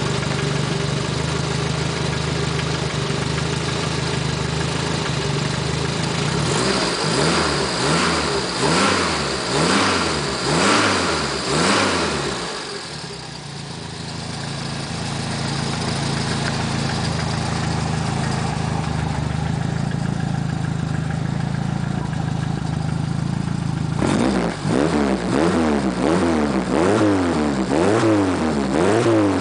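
Renault 8's four-cylinder engine running through an aftermarket twin-outlet exhaust, idling steadily, then revved in a run of quick blips from about six seconds in before settling back to idle, and revved repeatedly again from about 24 seconds in. Recorded on a phone microphone.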